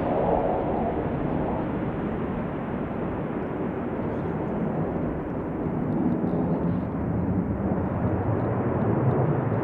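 Jet engine noise from Blue Angels F/A-18 Hornets taking off, a steady rush that swells slightly partway through and again near the end.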